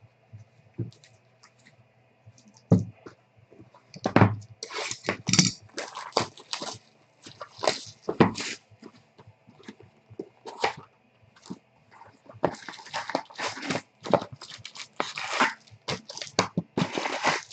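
Trading-card packs, foil wrappers and cards crinkling and rustling as they are handled, in quick irregular crackles that get busier about four seconds in.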